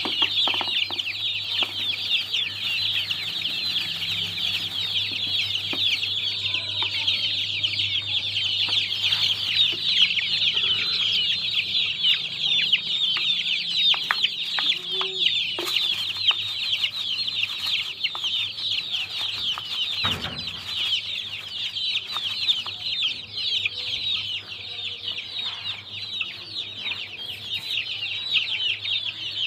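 A brood of young chicks peeping continuously, many high calls overlapping into a dense chorus, over a faint steady low hum.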